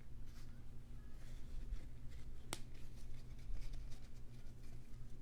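Trading cards being handled and slid into soft plastic sleeves: light rustles and ticks with one sharp click about two and a half seconds in, over a steady low hum.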